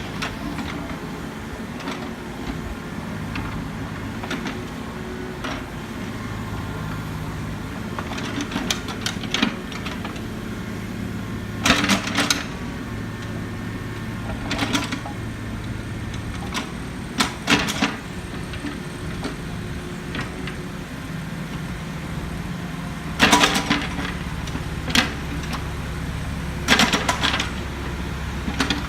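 Engine of a heavy earthmoving machine running steadily at road construction work, its note shifting partway through. Short clanks and scraping bursts come every few seconds.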